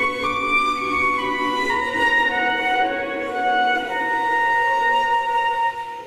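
Small flute choir playing, with sustained low chords held beneath higher lines that move in stepped notes. The sound dips briefly just before the end.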